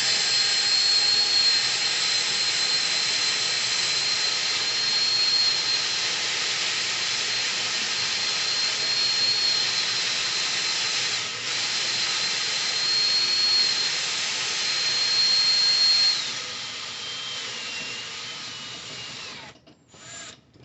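Electric drill boring with a carbide bit into a gun safe's steel lock casing: a steady run with a high whine. About 16 seconds in, the whine falls in pitch as the drill winds down, and it stops shortly before the end.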